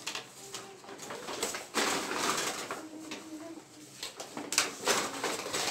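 Paper and plastic shopping bags rustling as they are handled, in two bouts: about two seconds in and again near the end. Between them come a few short, faint, low coo-like calls, like a bird cooing.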